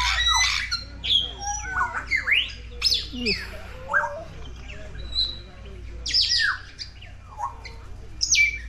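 Aviary birds calling: a busy run of short whistles, chirps and squawks, many sweeping quickly up or down in pitch.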